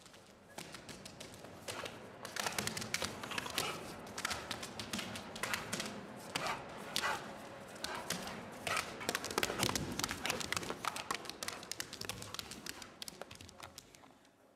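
Rapid, irregular tapping and clicking over a low rumble, fading in at the start and out near the end.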